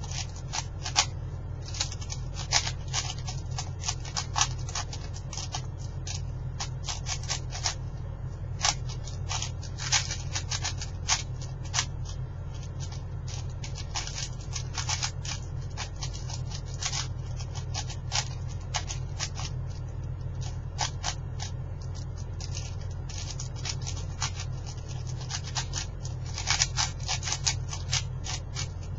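A 4x4x4 speed cube being turned rapidly by hand: its plastic layers give off quick irregular flurries of sharp clicks and clacks, with short lulls between flurries, over a steady low hum.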